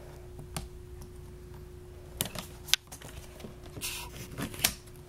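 Scissors cutting packing tape on a cardboard toy box, with the box and packaging being handled: scattered sharp clicks and snips, and a brief scratchy rasp about four seconds in, over a faint steady hum.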